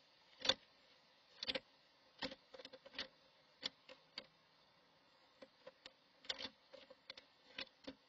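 Irregular sharp taps and knocks on a wooden nest box as a red-bellied woodpecker works its head and bill in at the entrance hole. The loudest knock comes about half a second in, and the rest come in small clusters.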